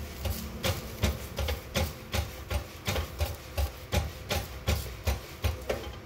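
A wooden hand press knocking repeatedly on a paratha as it fries in a pan, about three short thuds a second.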